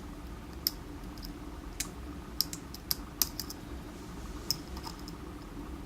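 Lock pick working the pin stack of a DOM iX10 KG high-security cylinder: about ten small, sharp, irregularly spaced clicks as the pick lifts pins and they set against tension, over a faint steady hum.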